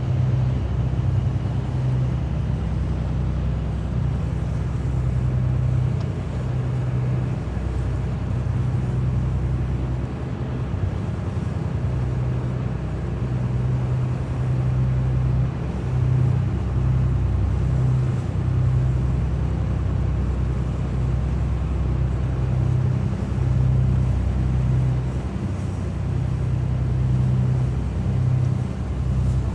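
Lifeboat's engine running steadily, a low drone with a slight uneven pulsing.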